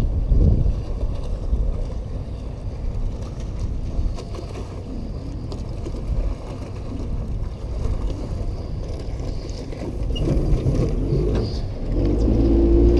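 Wind rumbling on the microphone over a low running boat as it moves slowly up to its trailer at the ramp. Outro music with steady held notes comes in near the end.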